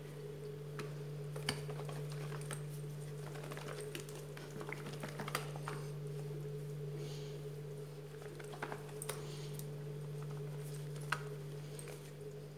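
Plastic bottle of dish soap, vinegar, water and salt shaken by hand to mix and dissolve the salt, heard as faint scattered taps over a steady low hum.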